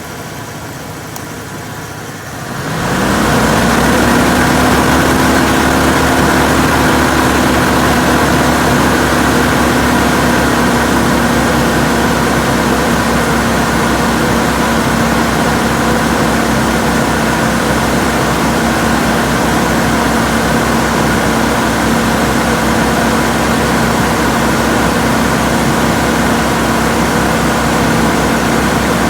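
A motor starts about two and a half seconds in, its hum rising briefly in pitch, then runs steadily with a hum over a rushing noise. This is a running sound the owner considers abnormal.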